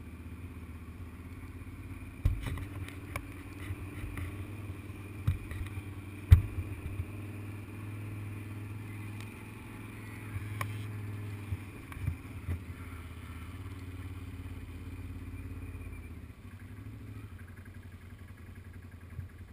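Quad bike engine running steadily as it drives over rough, rutted dirt, with several sharp knocks and rattles from bumps, the loudest about six seconds in. The engine drone eases off about three-quarters of the way through.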